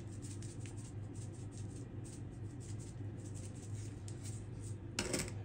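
Faint light clicks and taps from spice containers being handled, over a steady low hum, with one short louder sound near the end.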